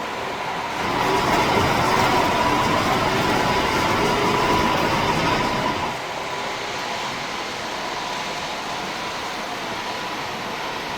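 Model train running along the layout's track, a steady rolling, whirring sound that grows louder about a second in and drops back about six seconds in as it passes close by.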